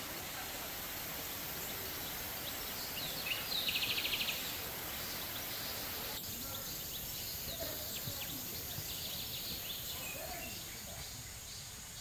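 Steady rush of a small creek, with scattered bird chirps. About three seconds in comes a brief rapid rattling call, the loudest sound.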